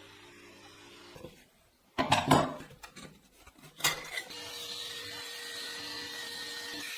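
Metalworking on a saw-blade knife blank: a cluster of sharp scraping knocks about two seconds in and another sharp hit a little later, then a steady machine run with a constant hum and whine.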